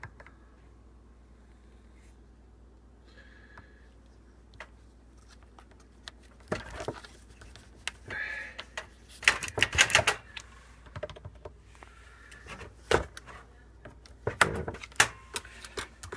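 Irregular sharp clicks and knocks close to the phone, starting about six seconds in after a quiet stretch: handling and climbing noise while getting from the ladder onto the roof.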